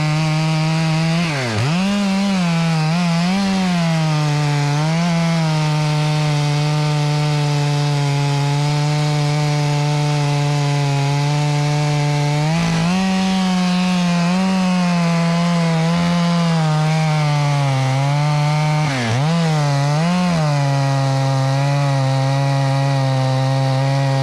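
Stihl chainsaw running at full throttle, cutting through a silver maple trunk as the back cut is worked toward the back of the tree. The engine note holds steady and wavers a few times, about a second and a half in, near the middle and again near the end, as the bar is loaded in the wood.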